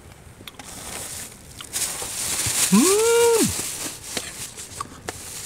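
A man's single drawn-out 'mmm' of delight while eating raw masu salmon sashimi, rising in pitch, held briefly, then falling, about three seconds in. A faint hiss and a few soft clicks sit underneath.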